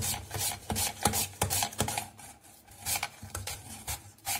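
A raw peeled potato pushed back and forth across a plastic mandoline chip slicer's steel blade, each stroke a short rasping cut as a slice comes off. The strokes are quick, about three a second, for the first two seconds, then fewer and further apart.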